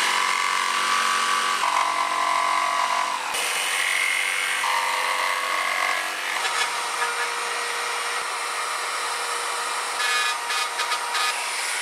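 Electric jigsaw running and cutting a seat-belt hole through a package-tray board, the motor note shifting as the blade works through the cut, with a few short rattles near the end.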